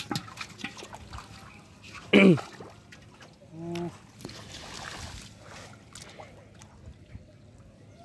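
Muddy water splashing and trickling as hands work through a shallow pool and in a water-filled metal pot while catfish are caught by hand. About two seconds in comes a short, loud cry that falls steeply in pitch, and just before the four-second mark a brief steady hum.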